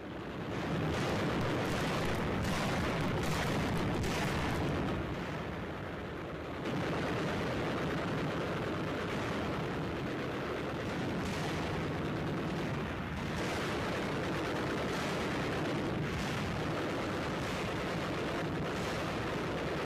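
PT boat deck guns firing at a shore target: a dense, continuous din of gunfire and blasts with single shots standing out now and then. It gets louder about seven seconds in.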